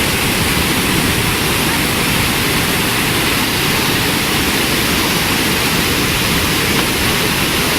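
Waterfall, a steady loud rush of falling water with no change throughout.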